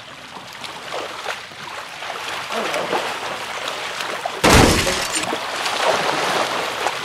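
Swimming-pool water splashing and sloshing as players move through it during a game, with one loud, sudden splash about four and a half seconds in.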